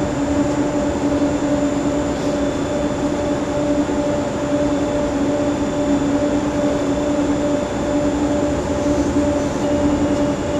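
Steady drone of running standby power equipment, with a constant two-tone hum over an even rumble. The UPS rectifier is repeatedly loading and dropping off a natural gas generator.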